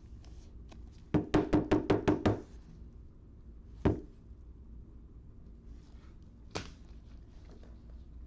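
A quick run of about eight knocks on a hard, hollow-sounding surface, then a single sharp knock a second and a half later and a fainter one near the end.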